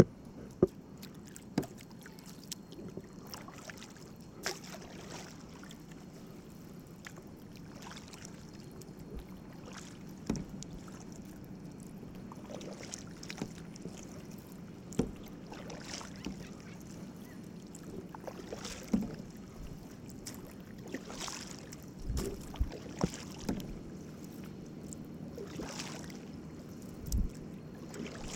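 Paddling a canoe: paddle strokes swishing and splashing through the water every few seconds, with scattered sharp knocks of the paddle against the hull, over a steady low hum.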